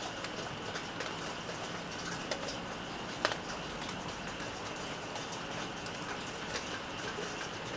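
Steady rain with scattered drips ticking on surfaces, one sharper drip about three seconds in.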